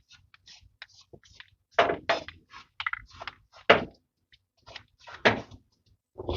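Aerosol can of alternator spray hissing in several short bursts about two, three and a half and five seconds in, with scattered small clicks and knocks between them.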